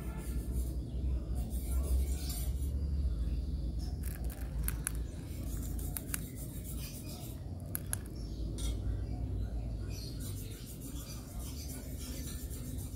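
Sharp single clicks of a small LED headlamp's push button as it is pressed to change light modes, a few seconds apart, over a steady low background rumble.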